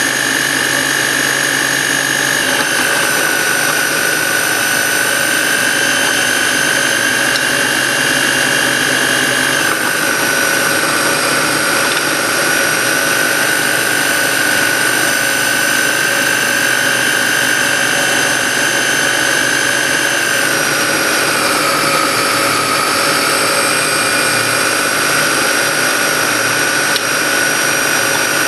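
Food processor motor running steadily at speed, blending crushed biscuits with softened butter, with a strong high whine whose pitch drops slightly a few times as the load shifts.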